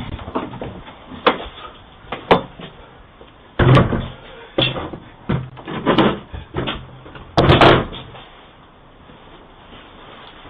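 A door being hit hard, about eight heavy bangs over some seven seconds. The loudest come in two clusters, near the middle and about three-quarters of the way through, each with a low boom. Heard through a doorbell camera's narrow-band microphone.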